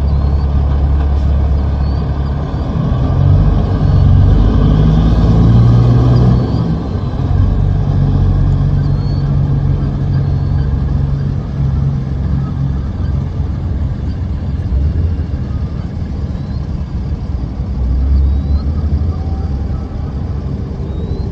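Semi truck's diesel engine pulling a loaded lowboy trailer, its low exhaust note rising as it accelerates and loudest about four to six seconds in. It then carries on as a steadier low rumble. Short high chirps recur faintly throughout.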